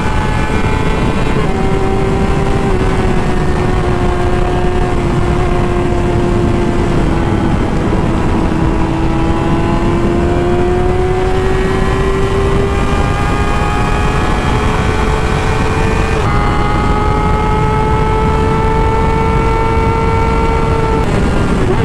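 Sport motorcycle engine running at high revs at highway speed: a steady drone whose pitch sags slightly, then climbs gradually, with a small jump about two-thirds of the way through. Heavy wind rush on the microphone underneath.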